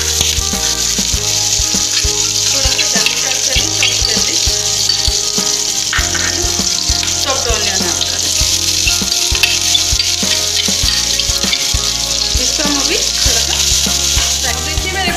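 Green chilli and chopped onion frying in hot oil in a pan: a steady sizzle, with the onion stirred in with a spoon.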